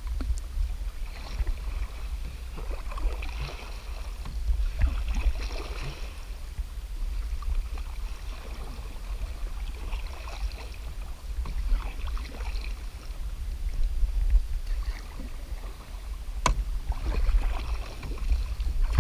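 Canoe paddles dipping and pulling through water in irregular strokes every couple of seconds, over a steady low rumble. There is one sharp click about sixteen seconds in.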